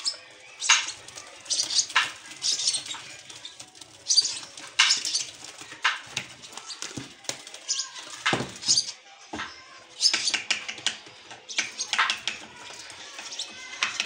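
Lovebird chicks calling: short, harsh, high calls repeating every second or so.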